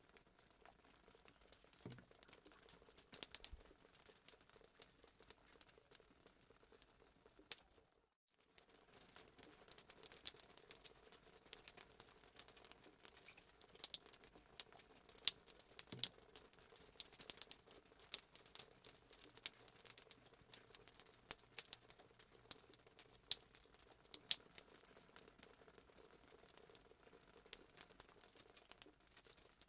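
Faint fireplace crackling sound effect: irregular snaps and pops of a wood fire over a soft hiss, cutting out completely for a moment about eight seconds in.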